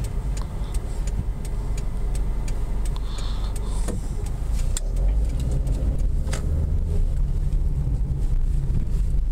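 Car heard from inside the cabin: steady low engine and road rumble, with the turn signal ticking regularly about three times a second through roughly the first half.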